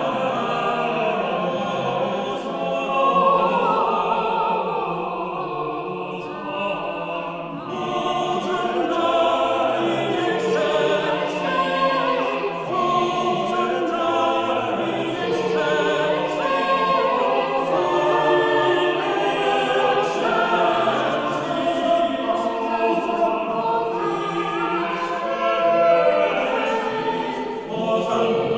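A small vocal ensemble singing Renaissance polyphony a cappella, several voice parts moving in overlapping sustained lines.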